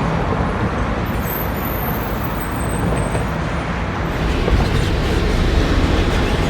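Steady road traffic noise, a dense rumble with a brief high whistle about a second in, growing a little louder after about four seconds.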